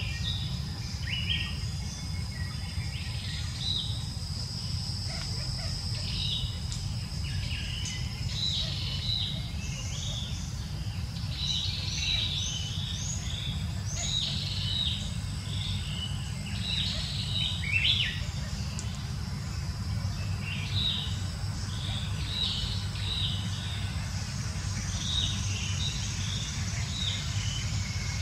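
Many short bird chirps and calls, repeated all through, over a steady low rumble. A thin steady high tone runs for about the first ten seconds.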